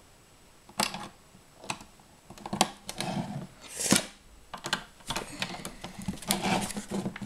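Plastic LEGO bricks clicking and clattering as they are handled and pressed together: irregular sharp clicks, some coming several in quick succession, with light rustling between them.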